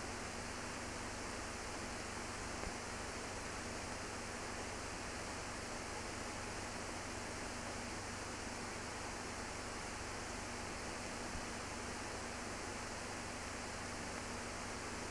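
Steady hiss with a faint low hum and no other sound: the background noise of an archival transfer with no recorded sound of its own.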